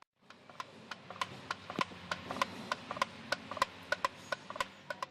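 Homemade pop-pop boat's steam engine popping: sharp clicks, about five a second, in an uneven, faltering rhythm that the builder likens to cardiac arrest.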